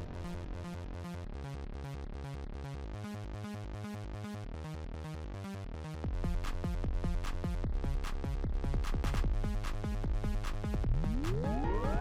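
Electronic background music with a steady beat; about halfway through it gets louder as a heavier bass comes in, and a rising synth sweep enters near the end.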